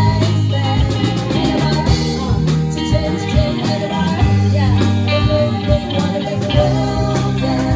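Live band playing a song: a singer over guitar, bass and a drum kit keeping a steady beat.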